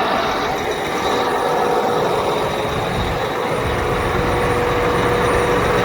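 John Deere 8270R tractor's 548 cu in six-cylinder diesel engine running steadily, with a steady whine over the engine noise; the low rumble grows heavier about three seconds in.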